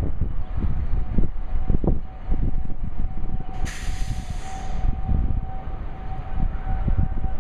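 Wind buffeting the microphone in low gusts while a distant Federal Signal 2001 outdoor warning siren sounds as a faint steady tone that grows stronger near the end. About halfway through, a sharp hiss lasts about a second.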